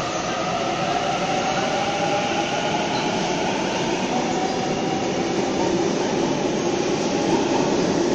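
Sydney Trains Waratah double-deck electric train pulling out of the platform: steady wheel-and-rail rumble under a motor whine that slowly climbs in pitch as it gathers speed.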